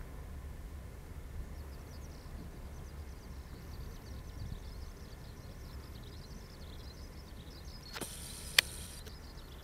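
Outdoor ambience: wind rumbling low on the microphone, with faint high chirping throughout. A little after eight seconds in comes a short hiss with one sharp click, the loudest sound.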